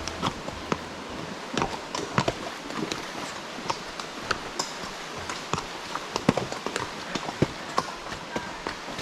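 Horse hooves clopping on a trail: a scatter of sharp, unevenly spaced knocks over a steady background hiss.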